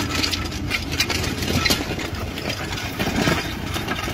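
Landini tractor's diesel engine running steadily under load as it pulls a disc plough through dry, hard ground, with scattered scraping and clatter from the discs and soil.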